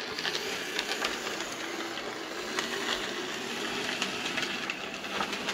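Hornby OO-gauge model train running on the layout: the locomotive's small electric motor whirring steadily, with light clicks of the wheels over the track, from a locomotive that has been running poorly.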